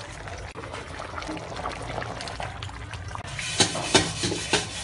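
Metal ladle stirring a pot of soup, the broth sloshing and trickling with light clinks. About three seconds in, the sound changes abruptly to a few loud, sharp rubbing strokes about half a second apart.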